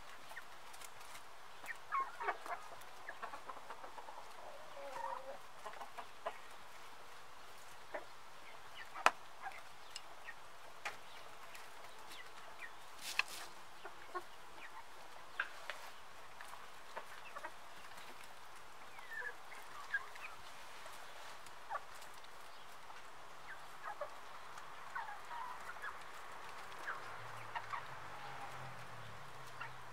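A flock of brown hens clucking and calling softly now and then while feeding, with scattered sharp taps and clicks of beaks pecking grain off the ground.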